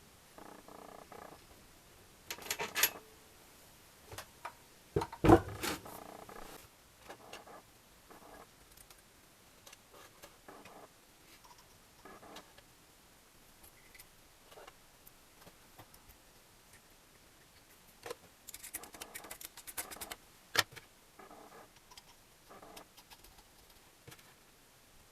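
Metal engine parts and hand tools being handled: scattered clinks, knocks and scrapes, with one sharp knock about five seconds in and a short run of rattling clatter near the end.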